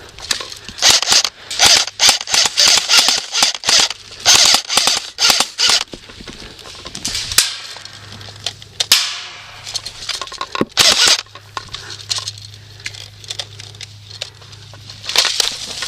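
Airsoft guns firing, with rapid strings of sharp snapping shots in the first few seconds and scattered single shots after that.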